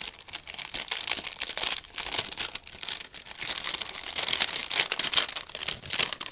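Packaging crinkling and rustling as a small wrapped package is opened by hand, a dense, continuous run of crackles.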